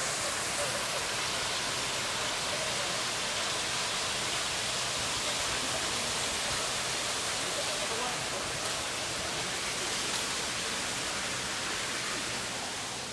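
Steady rushing of a small creek flowing over rocks, dropping a little near the end.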